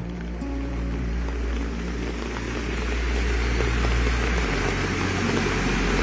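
A car driving through a flooded road: a steady low engine hum under a rushing of churned and splashing water, growing slowly louder.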